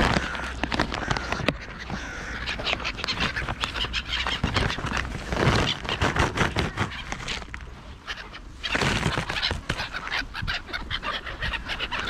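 Black-headed gulls calling over the feeding flock, with a plastic peanut bag crinkling and rattling as it is handled.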